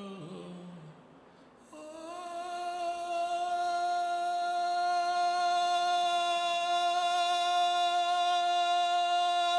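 A low sung phrase stepping down in pitch fades out. About two seconds in, a voice begins one long, steady hummed note that swells in and then holds.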